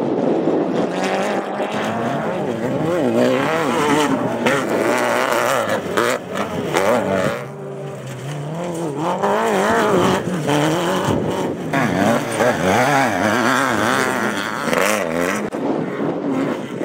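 Off-road race vehicle engines revving hard, their pitch swinging up and down every half second or so, with a brief dip in loudness about seven and a half seconds in.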